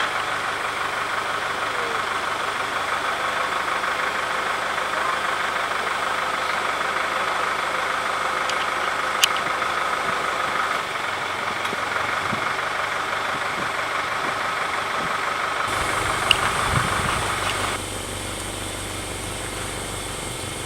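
An engine idling steadily, with a sharp click about nine seconds in. The running sound drops in level near the end.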